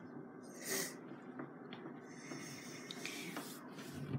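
A short, breathy sniff or exhale close to the microphone about three quarters of a second in, then faint hiss with a few small clicks of hands working the clay.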